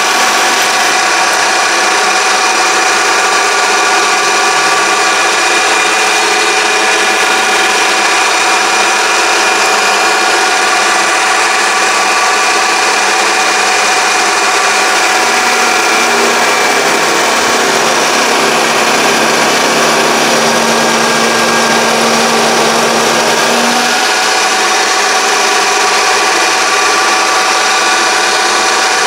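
Mini lathe running while turning down a workpiece's diameter, giving a loud, steady whine of several tones. A lower hum joins about halfway through and stops a few seconds before the end.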